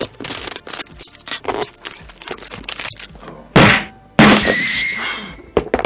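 A plastic toy capsule being pried and torn open: a run of small clicks and crackles of plastic and seal, then a loud thunk about three and a half seconds in and a second crackling burst just after as the shell comes apart.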